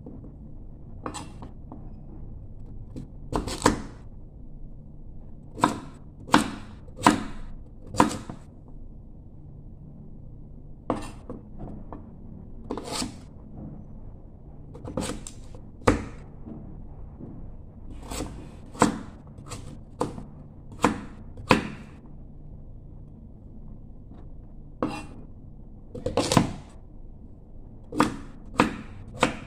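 Large kitchen knife chopping firm food on a wooden cutting board: sharp, irregular knocks of the blade striking the board, roughly one a second, over a steady low background hum.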